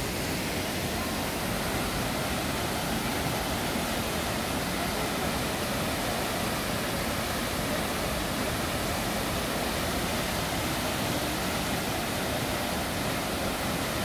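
Düden Waterfall's water falling and rushing, a steady unbroken noise.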